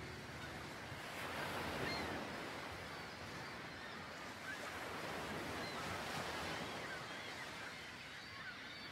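Sea surf washing steadily onto a beach, with short bird calls scattered over it.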